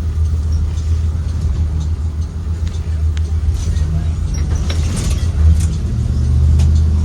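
Inside a 2023 Blue Bird Vision school bus under way: its Ford 7.3L V8 and the road give a steady low drone, with light rattles and ticks from the cabin. The drone swells a little near the end.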